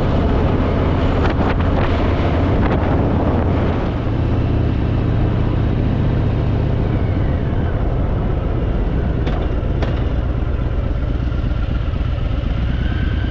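Harley-Davidson Fat Boy's V-twin engine running steadily as the motorcycle rides along.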